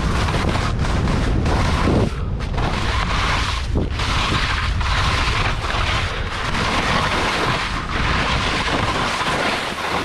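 Wind buffeting an action camera's microphone as a skier runs fast downhill, over the hiss and scrape of skis on snow. The noise eases as the skier slows near the end.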